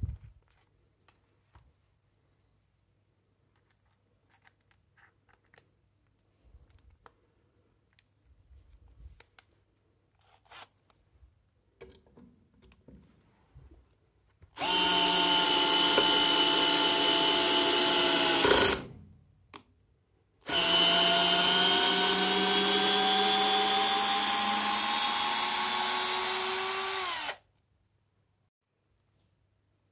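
Parkside PBSA 12 D4 12V cordless drill driving a long wood screw into timber for about four seconds, its motor whine dropping in pitch as the screw bites in. After a short pause it runs again for about seven seconds, the whine creeping up as it backs the screw out, and then stops sharply. Light handling clicks come before the first run.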